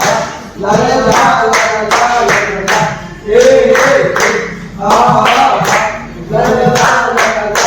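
A group of restaurant staff singing a birthday song together in chorus, with rhythmic hand clapping.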